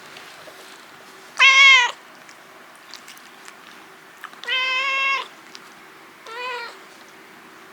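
A kitten meowing three times, each meow a clear pitched call under a second long, the third shorter and quieter than the first two.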